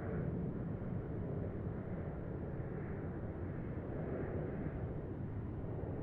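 Distant highway traffic: a steady, low wash of tyre and engine noise with slight swells as vehicles pass.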